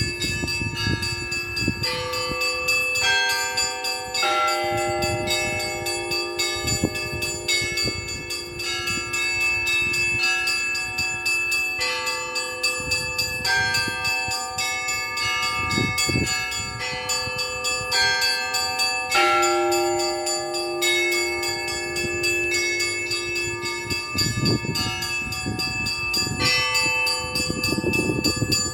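Russian Orthodox church bells rung in a continuous peal: small bells struck in quick succession over the longer-ringing tones of lower bells, with no pause.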